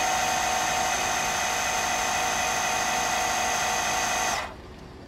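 Air Lift air-suspension compressor running with a steady high whine as it inflates the truck's rear airbags toward a 25 psi setting, then cutting off suddenly about four seconds in.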